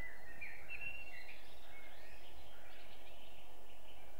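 Forest ambience: a steady soft background hiss with faint songbirds calling, short chirps and whistles, most of them in the first half.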